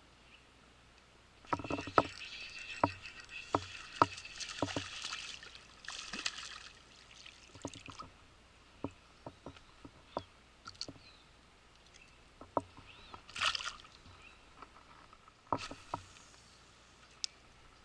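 Water splashing and sloshing in a shallow stream as someone wades, with sharp clicks and knocks mixed in. It is busiest for a few seconds early on, with another short splash about two-thirds of the way through, and single clicks in between.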